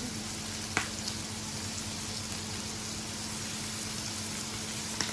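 Food sizzling in a hot pan or on a grill: a steady hiss of frying, with a faint steady hum beneath and a short click about three-quarters of a second in.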